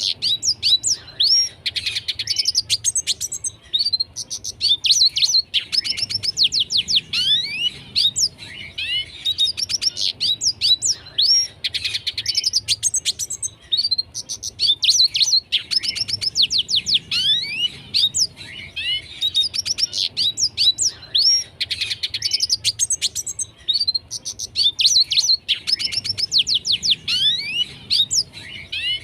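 Red siskin singing vigorously and without pause: fast, twittering phrases of trills and rising and falling whistled notes, each phrase a second or two long with brief gaps between.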